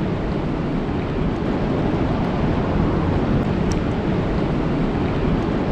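Rain falling steadily, an even rushing hiss, with a couple of faint ticks about three and a half seconds in.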